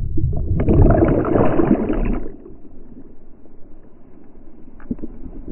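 Muffled, loud churning water and bubbles, as from a camera plunged under the surface in whitewater, for about two seconds, then a quieter steady rush of river rapids with a couple of faint knocks.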